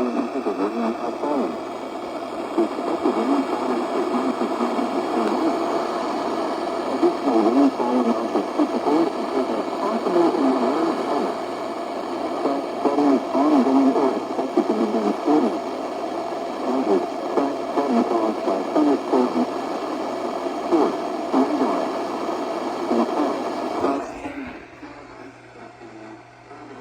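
A weather radio's speaker playing a broadcast voice message that sounds thin and narrow, with a steady hiss behind it; it cuts off about 24 seconds in.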